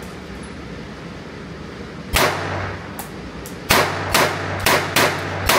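Pistol shots echoing in an indoor range: a single shot about two seconds in, then a rapid string of five shots in the last two seconds, with two fainter pops between them.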